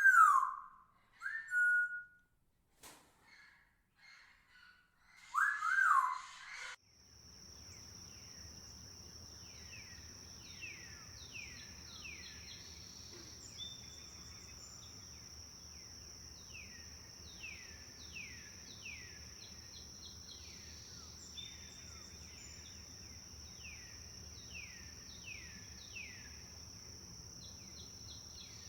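Birds calling: three loud whistled notes, each rising in pitch, in the first six seconds. Then, after a short quiet, a steady high-pitched whine with many quick chirps falling in pitch over it.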